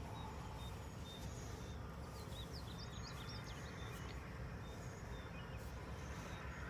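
Quiet outdoor background: a steady low rumble, with a bird giving a quick run of high chirps about two to three seconds in.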